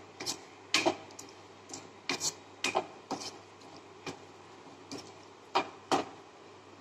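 Wooden spatula clacking and scraping against a non-stick kadai while stirring a tomato and dried red chilli mixture: a string of irregular knocks, several a second, with a short pause a little after the middle.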